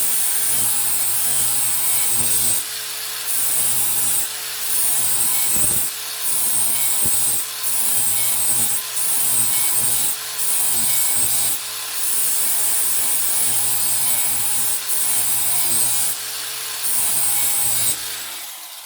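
DeWalt DCG412N 18 V cordless angle grinder with a 120-grit flap disc grinding the steel edge of a lawn mower blade to sharpen it. The motor runs steadily while the disc bites in a dozen or so roughly one-second passes with short breaks between them. The grinder shuts off near the end.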